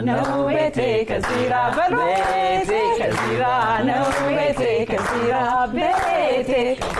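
Unaccompanied singing by voices, a woman's voice among them, with long held, wavering notes.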